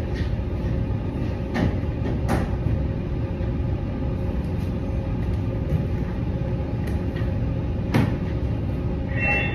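Steady low machinery rumble filling the room, with a few sharp taps and rustles from paper and laptop handling at the desk, the loudest about eight seconds in.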